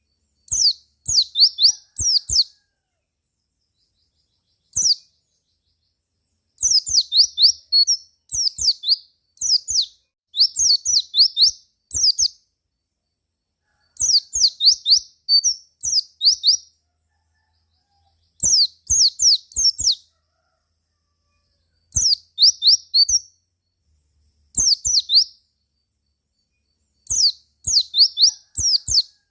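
White-eye (pleci) singing: short bouts of rapid, high, chirping notes, each note slurring downward, repeated every couple of seconds with brief silent gaps between bouts.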